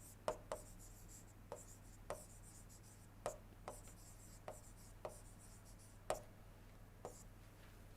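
Pen writing on a surface: about a dozen light, irregular taps with faint scratching strokes between them, over a steady low electrical hum.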